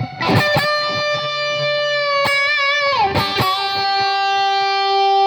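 Ibanez AZ2402 Prestige electric guitar playing a lead line: a few picked notes, then long sustained notes with vibrato, sliding down about three seconds in to a long held note.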